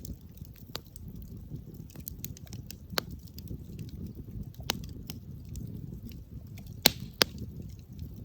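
Campfire crackling: sharp, scattered pops of burning wood over a low, steady rumble, with two loud pops close together near the end.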